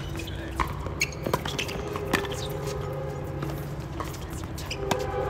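Tennis ball being hit back and forth in a doubles rally: several sharp pops of the ball off racquet strings and bouncing on the hard court, the loudest a little over two seconds in.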